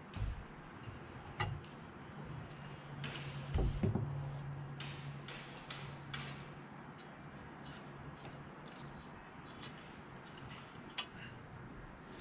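Light metallic clicks and taps of a steel feeler gauge set being handled and slid under a straight edge held against a 5.9 Cummins cylinder head, checking the head for flatness. One louder low thump comes about four seconds in, and a low steady hum runs through the first half.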